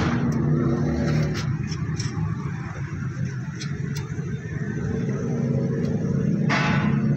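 An engine idling steadily with a low hum, with a few light metallic clicks from parts being handled.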